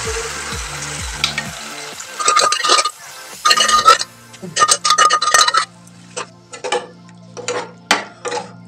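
Boiled pumpkin pieces and their cooking water poured into a hot pan of fried masala, sizzling and fading over the first two seconds. Then a metal ladle stirs the curry, scraping against the pan in a series of short strokes.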